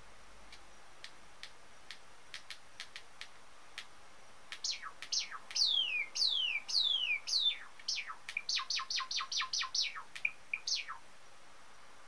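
Java sparrow singing its courtship song: a scattered run of soft ticks, then a string of whistled notes that each sweep downward, ending in a quick series of short notes at about five a second and a final downward note.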